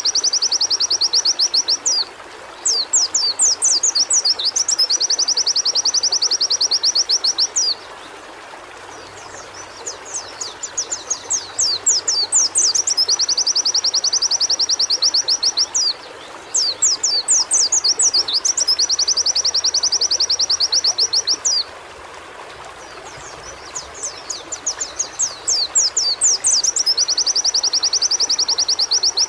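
White-eye (pleci) singing loud, repeated phrases: each opens with a string of quick, separate high notes and runs into a fast, even trill lasting several seconds, with short pauses between about five phrases. A steady rushing noise runs underneath.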